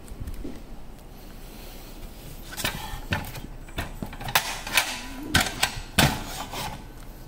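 Makita DHS901Z cordless circular saw being handled: its metal base plate and plastic housing give a run of sharp clicks and knocks through the second half.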